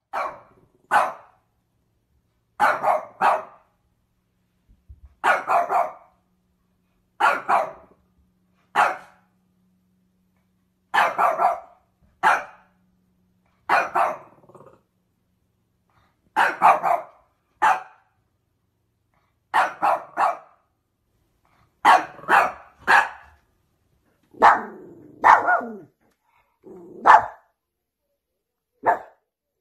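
A puppy barking in short, high barks, one at a time or in quick pairs and triplets, with a silent gap of a second or two between groups.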